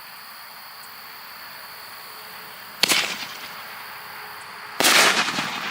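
Two fireworks bangs about two seconds apart, the second louder and longer with a short crackling tail.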